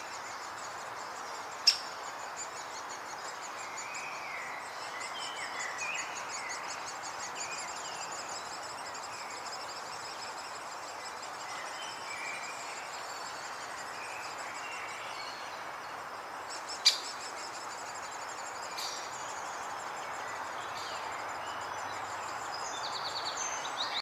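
Birds chirping and a high, fast, buzzy trill over a steady hiss, with two sharp clicks, one about two seconds in and another about two-thirds of the way through.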